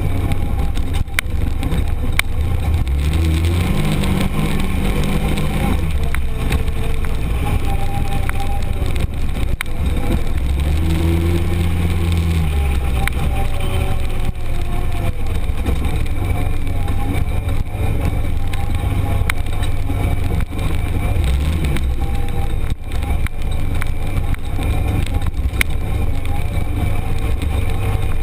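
Arctic Cat Prowler 1000 UTV's V-twin engine running under load on a rough trail, heard from inside the open cab. Its pitch climbs and falls back twice as the throttle is opened and eased, with a shorter rise near the end. Knocks and rattles from the rough ground come through over the engine.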